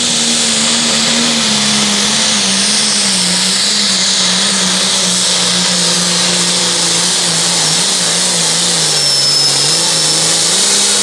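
International 1066 Limited Pro pulling tractor's engine at full throttle, loud and steady, under load as it drags the weight sled down the track. Its pitch dips about eight seconds in and climbs back near the end, with a brief high whistle about nine seconds in.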